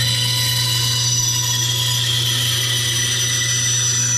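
Grizzly G0555X 14-inch band saw cutting through a pine board: a loud, high cutting hiss with a faint steady whine, over the steady hum of the saw's motor.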